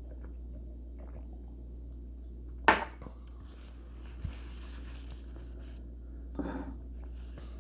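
Bottle being handled on a hard surface: a sharp knock about three seconds in, a small tap, and a softer clatter near the end, over a steady low electrical hum.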